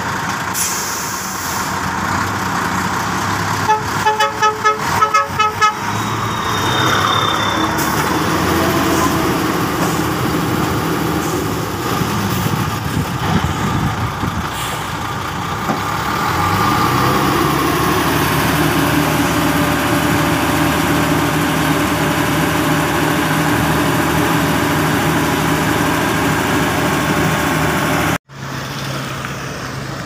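Heavy trucks running on a dirt road, with a vehicle horn tooting a quick string of short beeps about four seconds in. From about halfway a diesel engine runs steadily close by, and the sound breaks off abruptly near the end.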